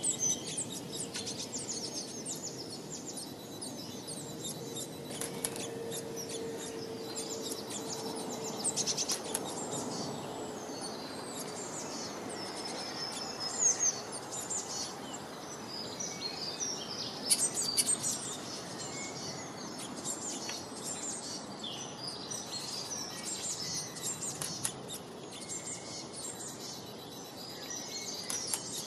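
Small birds chirping and twittering on and off, over a steady background hiss. A faint steady hum sounds for about five seconds, starting around four seconds in.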